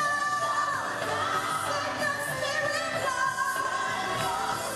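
Gospel song playing: a sung melody with long, gliding held notes over full instrumental backing.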